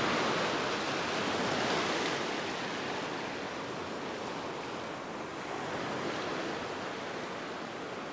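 Surf breaking and washing up the beach: a steady rush of waves, a little louder in the first two seconds and easing after.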